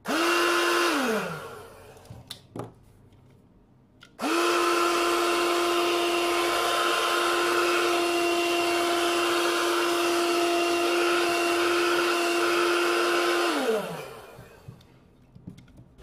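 Homemade PVC-pipe vacuum cleaner driven by a 775 12 V DC motor, switched on briefly and spinning down, then a few clicks. About four seconds in it starts again and runs at a steady high whine with rushing air for about nine seconds before spinning down with a falling pitch.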